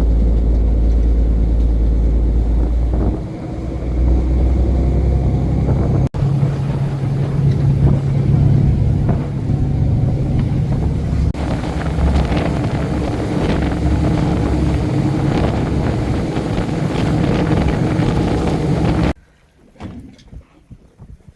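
Fishing boat's engine running under way, a loud, steady low rumble with rushing noise, which stops abruptly about nineteen seconds in.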